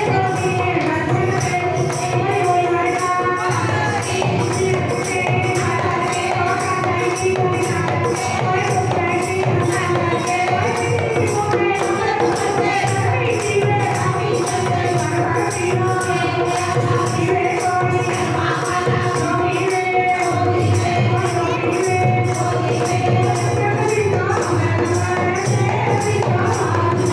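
Devotional group singing with a steady beat of jingling percussion, about two beats a second, and people clapping along.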